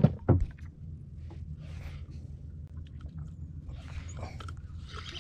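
A few sharp knocks as a camera is handled and turned around. Then a steady low rumble with faint scattered clicks and soft swishes, from handling on a small boat at sea.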